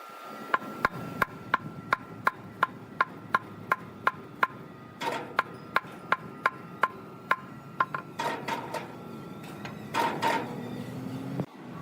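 Sharp, evenly spaced wooden knocks, about three a second, over a faint steady hum; they stop about eight seconds in, followed by a few longer scraping noises.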